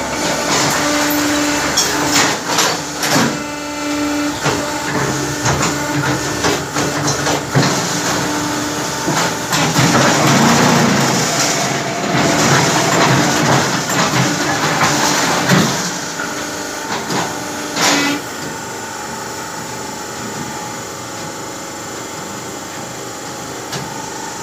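Concrete paver block making machine running: a steady motor hum with repeated knocks and metal clanks of the mould and pallet during a moulding cycle. The knocking stops about three quarters of the way through, leaving a quieter steady hum.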